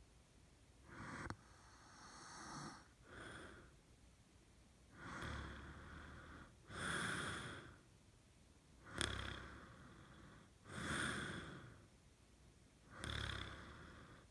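A man snoring in his sleep. There is a rough snore on the breath in about every four seconds, three in all, with a softer breath out between them.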